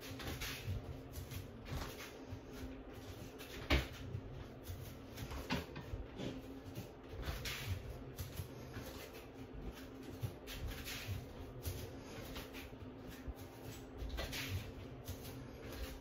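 Scattered soft knocks, taps and rustles of clothing and phone handling as the person sways and steps, over a steady low hum; one sharper knock about four seconds in.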